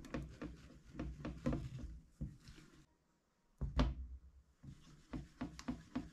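Silicone spatula stirring melted chocolate in a stainless steel saucepan, with irregular scrapes and knocks against the pot. The sound drops out briefly just before three seconds in, then the loudest knock comes right after.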